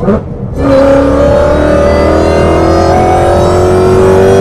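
Whipple twin-screw supercharger on a 2015 Mustang GT's 5.0 V8 whining loudly under acceleration, its whine piped into the cabin by a sound tube. It comes in about half a second in and climbs slowly in pitch with the engine.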